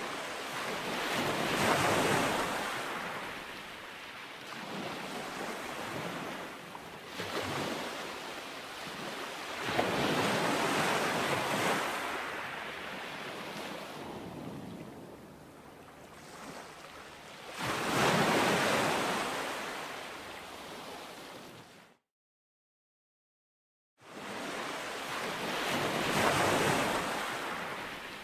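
Ocean surf: waves break and wash up the beach in slow swells about every eight seconds, a rushing hiss that rises and falls away. The sound drops out completely for about two seconds roughly three-quarters of the way through.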